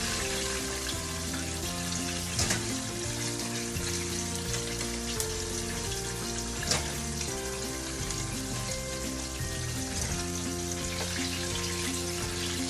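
Hot oil sizzling steadily as chicken fries, with a couple of sharp knocks about two and a half and seven seconds in. Background music with held notes plays under it.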